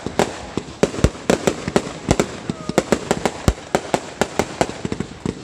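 Fireworks going off in a rapid, irregular string of sharp bangs and cracks, several a second.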